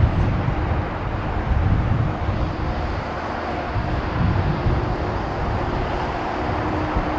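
Jet airliner on its landing approach, a steady loud engine roar with faint steady whining tones and an uneven low rumble underneath.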